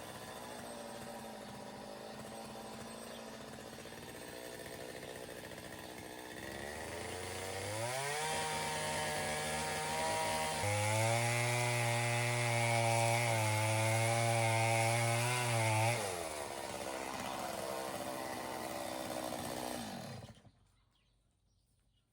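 Chainsaw idling, then revved up about seven seconds in and held at high revs for several seconds while cutting through the dead wood of a kōwhai tree. It drops back to idle and cuts off abruptly about twenty seconds in.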